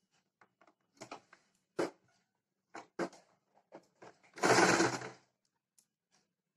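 Small portable electric sewing machine stitching in one short burst of about a second, a little past the middle. Before it come scattered clicks and rustles of cloth being positioned under the presser foot.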